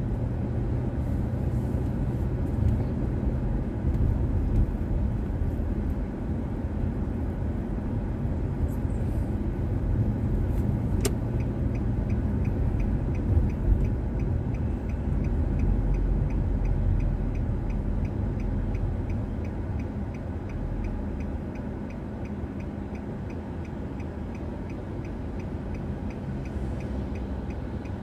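Car driving, heard from inside as a steady low rumble of engine and road. About eleven seconds in there is a sharp click, and from then on a turn-signal indicator ticks at an even pace.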